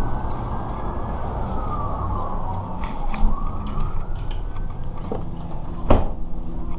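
A siren wailing, its pitch slowly rising and falling and then rising again, over rumbling camera-handling noise. A sharp knock comes near the end.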